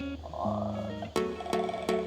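Background music with plucked notes, the notes setting in with a steady beat about a second in.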